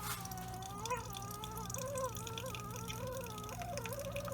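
Keurig K-Slim single-serve brewer making tea: the pump runs with a steady hum and a wavering whine while hot water dispenses into the cup.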